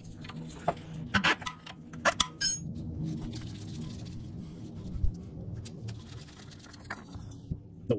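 A few light clicks and knocks as a gloved hand works the oil filter loose on a Yamaha R1 engine, bunched between about one and two and a half seconds in, over a faint steady low hum.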